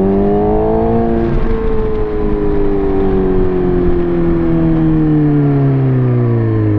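2007 Suzuki GSX-R600's inline-four through an M4 exhaust. It revs up for about the first second, then the pitch falls slowly and steadily for several seconds as the bike rolls off the throttle and slows.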